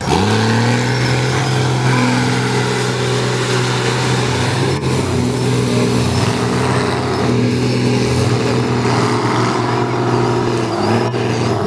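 Mud bog truck engine revving up in the first second, then running hard at a nearly steady high pitch.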